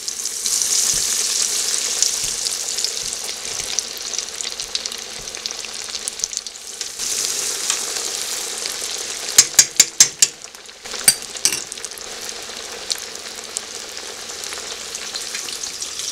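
Breaded fish pieces sizzling in hot canola oil in a stainless steel pot, the hiss swelling as pieces are laid in, about a second in and again around seven seconds. A quick run of sharp metal clinks comes just past the middle, and one more a second later, from the wire skimmer against the pot's strainer basket.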